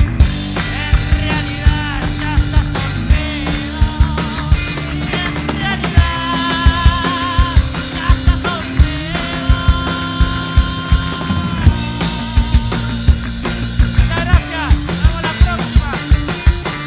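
Rock band playing: a steady, hard-hit drum beat with bass and held, wavering lead notes.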